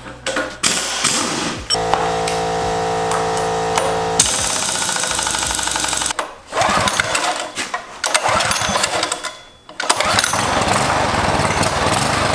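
Pneumatic impact wrench on the flywheel nut of a small single-cylinder engine, fitting the starter cup: a steady whine for about two seconds, then several noisy bursts with short pauses between them.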